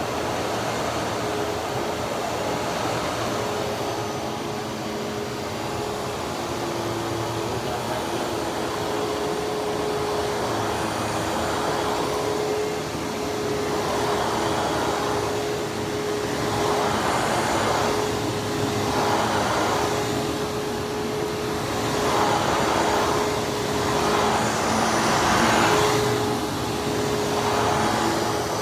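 Hoover Twin Chamber self-propelled WindTunnel upright vacuum running: a steady motor whine over airflow noise. In the second half it swells and fades in regular strokes about every second and a half.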